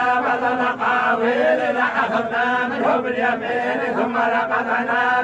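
Group of men reciting the Quran together in unison, a continuous chanted recitation held on a steady pitch without a break.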